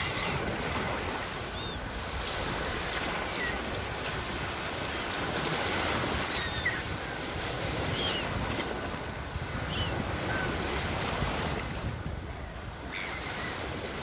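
Sea waves washing in: a steady rushing surf, with short high chirps now and then.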